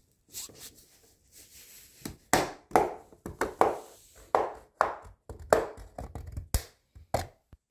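Plastic retaining clips of a Wacom Cintiq Pro 24's glass screen snapping loose as a plastic pry tool and fingers work along the seam between glass and case. Faint scraping first, then from about two seconds in a quick run of sharp snaps, roughly two a second.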